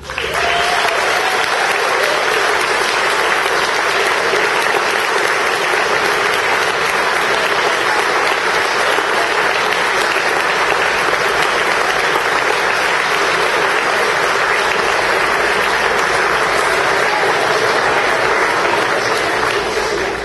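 Audience applauding steadily for a choir, dying away near the end.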